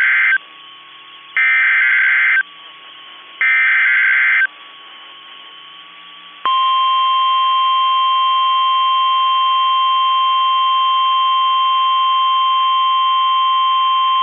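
NOAA Weather Radio Emergency Alert System signal for a Special Marine Warning. The raspy digital bursts of the SAME alert header come about a second apart: the end of one, then two more. After a short gap, the steady 1050 Hz warning alarm tone starts about six and a half seconds in and holds.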